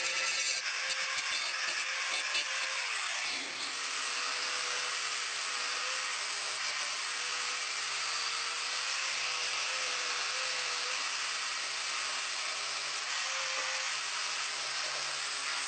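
A small power tool running steadily with a hissing whir and a faint wavering hum, with a brief falling sweep and dip about three and a half seconds in.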